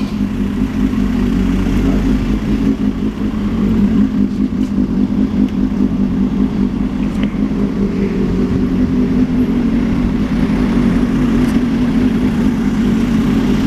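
An engine running steadily with a low hum, swelling in the first second and then holding.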